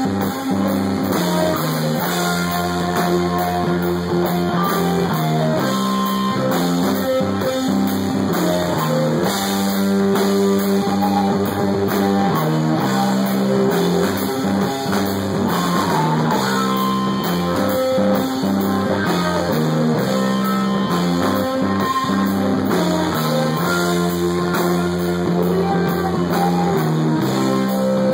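A stoner rock band playing live and loud: an electric guitar riff repeating over a drum kit.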